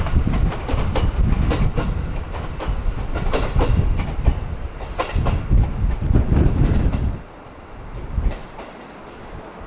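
Train running on rails: a heavy low rumble with a quick series of sharp wheel clicks over rail joints. It drops off suddenly about seven seconds in, leaving a quieter rumble.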